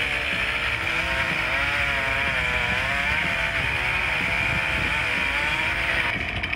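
Chainsaw running hard while cutting a tree, its engine pitch wavering up and down. The sound changes abruptly near the end.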